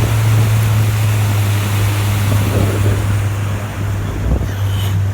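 Tour boat under way: its motor running with a steady low hum, under a constant rush of water and wind noise.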